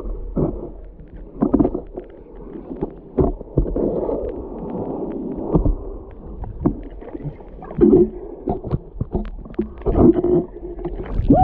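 Muffled underwater sound of heavy surf through a camera housing: the surge of breaking waves with bubbling and many short knocks and clunks throughout.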